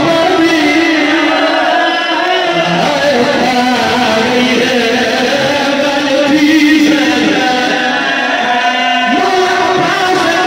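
A man's voice singing a majlis recitation through a microphone and loudspeakers, in long, held melodic notes.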